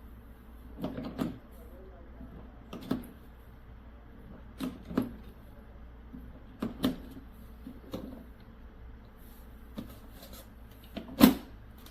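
A series of short knocks and clicks, one every second or two, the loudest near the end.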